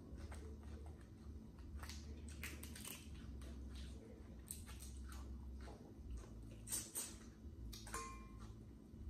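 Eating sounds: irregular crunches and clicks of boiled crawfish shells being cracked and peeled by hand and of bites into corn on the cob, with chewing. The loudest crunches come about two-thirds of the way in.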